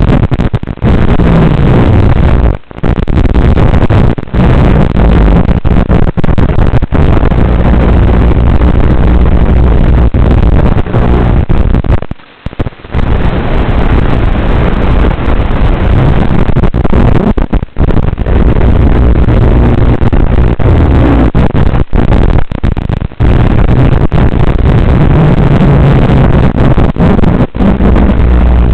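Loud, steady rushing noise with a low hum, from the recorded FPV feed of a Blade Torrent 110 quadcopter in flight. It is cut by many brief dropouts, the longest about twelve seconds in.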